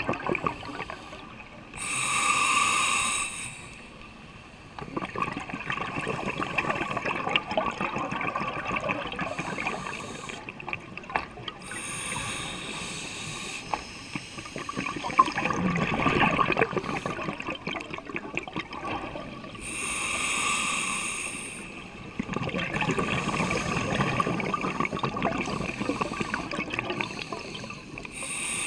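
Scuba regulator breathing underwater: four short hissing inhalations, roughly every eight to ten seconds, each followed by a long crackling, bubbling exhalation.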